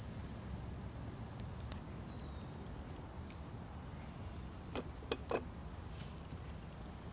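A small metal camp kettle knocking and clinking three times in quick succession, about two thirds of the way in, as it is lowered off a wooden stick onto the ground, over a steady low background rumble.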